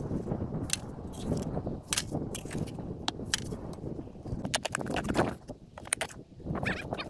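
Shovel digging in a hole of dirt and small stones: scraping strokes with scattered sharp clicks as the metal blade strikes gravel and rocks.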